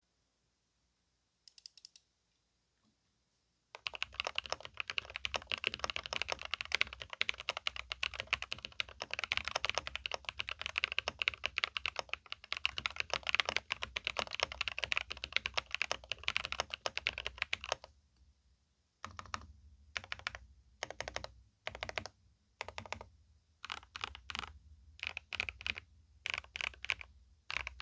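Mechanical keyboard with Durock Black Lotus linear switches on a polycarbonate plate, a Monsgeek M6 Alice-layout board, being typed on. A few light clicks come first. About four seconds in, fast continuous typing starts and runs for some fourteen seconds. After that come short separate bursts of keystrokes with brief pauses between them.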